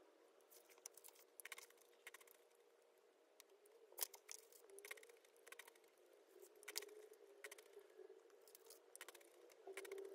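Faint paper rustling as paperback book pages are turned and smoothed down by hand, with scattered light taps and a sharper tap about four seconds in.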